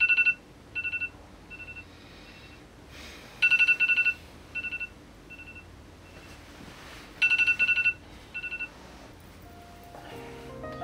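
Electronic alarm beeping, the wake-up alarm going off. It comes in repeating groups about every four seconds, each a loud run of quick high beeps followed by a few softer ones that fade away. Piano notes start just at the end.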